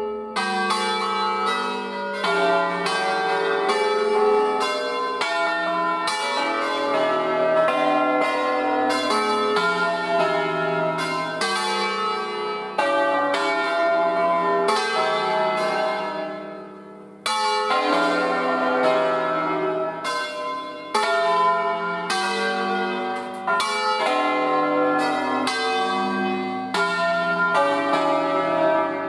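A ring of eight church bells in C, cast by Luigi Cavadini in 1925, rung by hand with ropes as they swing: rapid, overlapping strikes in a melodic sequence, each bell ringing on. The ringing dies away just past halfway, then starts up again after a brief gap.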